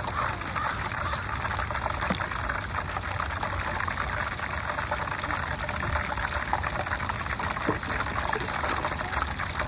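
Hot oil in a pot sizzling and crackling steadily as battered pieces deep-fry in it.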